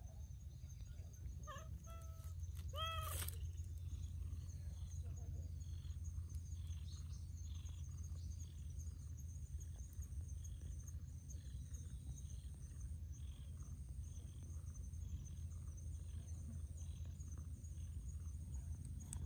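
A cat meows three times in the first three seconds, short calls that rise and fall in pitch. After that only a steady high-pitched hum and a low rumble remain in the background.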